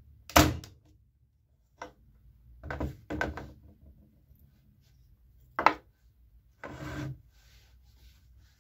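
Handling noises of a plastic-bodied electric stapler and a wooden strip on a work board: a sharp loud clack about half a second in, then scattered knocks and scraping as the wood strip is picked up, turned over and the tool set back down.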